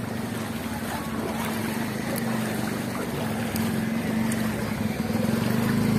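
A motorcycle engine running steadily, getting louder near the end as it comes closer.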